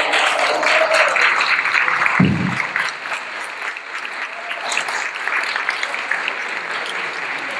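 A large audience applauding, loudest over the first two seconds or so and then easing off. A single low thump comes about two seconds in.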